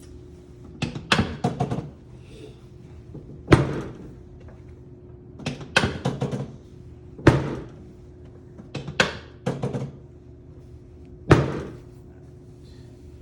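Chiropractic drop table clunking as its padded drop sections fall under the chiropractor's adjusting thrusts: a run of sharp knocks in quick clusters of three to five, alternating with single heavier thuds about every two seconds.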